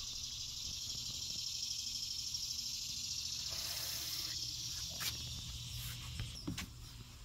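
Steady high-pitched chorus of insects, with a faint low hum beneath it. A few light clicks and knocks come in the last couple of seconds.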